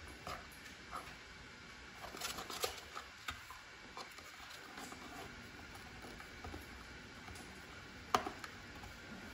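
A pet parrot inside a cardboard box, chewing and shredding the cardboard: faint scattered rustles, crinkles and sharp clicks, with a cluster about two seconds in and one sharper crack a little after eight seconds.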